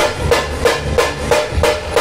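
Nashik dhol ensemble drumming: a steady beat of sharp stick strikes about three a second over the low boom of the big barrel dhols, which drops out near the end.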